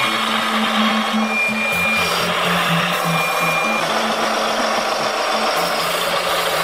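Small electric motors and gearing of radio-controlled construction models whirring steadily, with a few short high-pitched whines coming and going.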